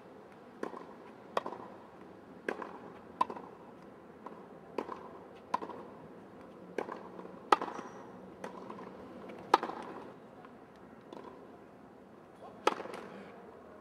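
Tennis ball struck by a racket again and again in a rally: sharp pops of ball on strings, roughly one a second, some much louder than others.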